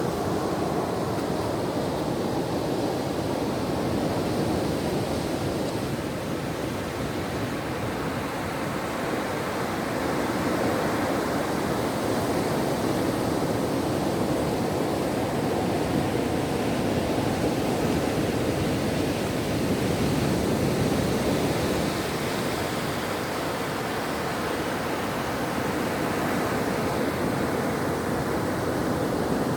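Ocean surf: a steady, continuous wash of waves on a shore, swelling and easing only slightly.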